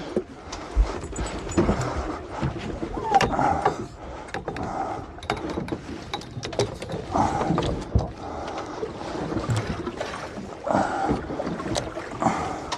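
Sea water slapping and splashing against the hull of a small drifting fishing boat, with scattered knocks and clatter on board.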